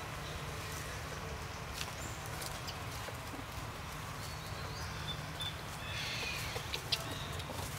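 Outdoor ambience: a steady low rumble with scattered small clicks and rustles, a few brief high chirps, and a sharp click about seven seconds in.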